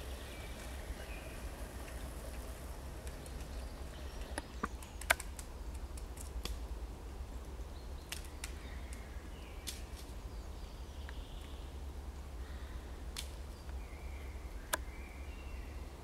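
A woodpecker pecking at a dead branch in sharp, irregular single taps, the loudest about five seconds in. Faint songbird calls come from further off, over a steady low rumble.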